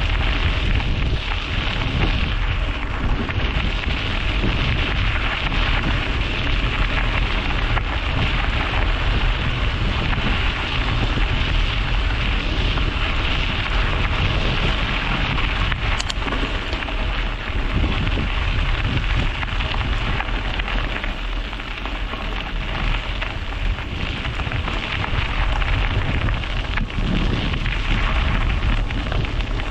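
Wind buffeting an action camera's microphone on a moving bicycle, a steady deep rumble, mixed with the steady hiss of the tyres rolling over the road.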